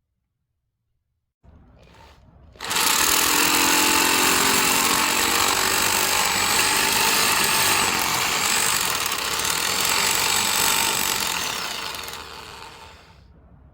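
A handheld power tool starting up a couple of seconds in, running steadily for about ten seconds, then winding down near the end.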